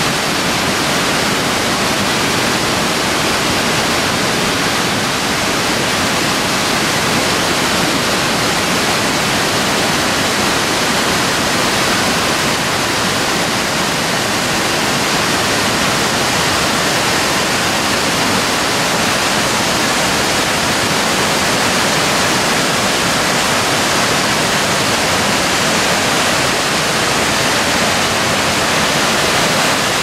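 Waterfall in spate after heavy rain, its water pouring over a rock cliff in a loud, steady rush.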